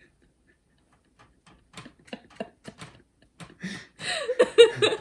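A woman laughing. It starts about two seconds in as short, breathy, silent-laugh puffs and builds into open voiced laughter near the end.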